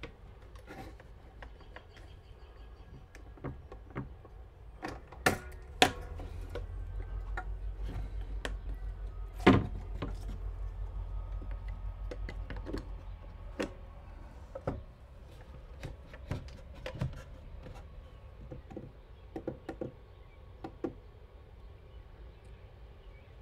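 Scattered clicks, taps and knocks of a greenhouse automatic vent opener's metal arm and bracket being handled and fitted against a wooden vent frame, with a few sharper knocks. A low rumble comes in about six seconds in and fades about seven seconds later.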